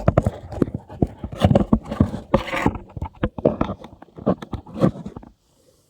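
Ported 62cc chainsaw engine firing unevenly in a rapid string of irregular pops, then cutting out abruptly near the end.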